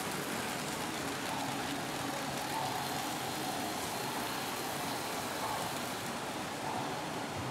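Model train running steadily around its track: an even hum and rumble of the electric motor and wheels, set in the broad hiss of a large indoor atrium.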